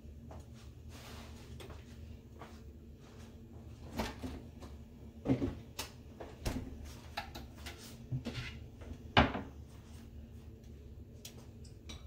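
A handful of sharp knocks and clatters in a kitchen, about six of them through the middle of the stretch, the loudest near the end, over a steady low hum.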